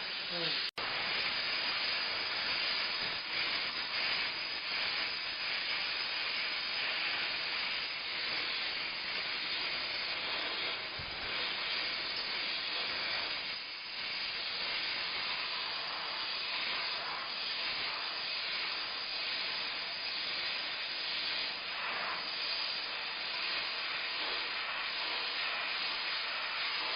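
Steam mop jetting steam: a steady hiss with one momentary break less than a second in.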